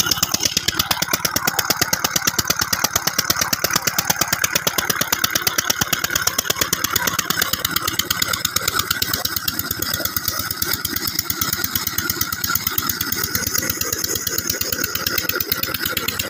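Single-cylinder 'Peter' diesel engine running steadily with a fast, even beat as it drives a tube-well pump by belt, with water gushing from the outlet pipe.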